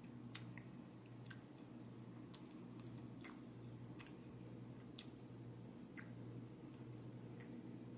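Faint close-miked chewing of a mouthful of salad, wet and soft, with crisp mouth clicks about once a second, over a steady low hum.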